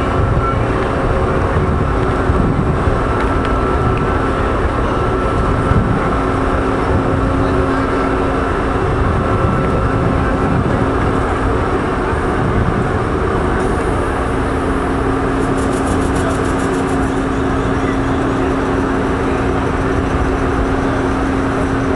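Panama Canal electric towing locomotive running: a steady mechanical hum with several held tones over a dense rumbling noise. A brief rapid ticking comes in about two-thirds of the way through.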